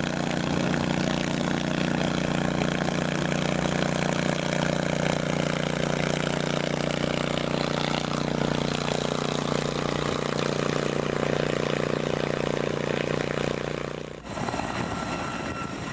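Heavy-lift helicopter running at close range: a loud, steady turbine-and-rotor drone with a constant low hum. It cuts off abruptly about two seconds before the end, leaving a quieter, rougher noise.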